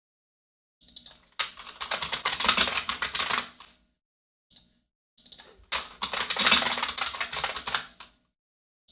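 Typing on a computer keyboard: two quick runs of keystrokes, each about three seconds long, with a pause between them.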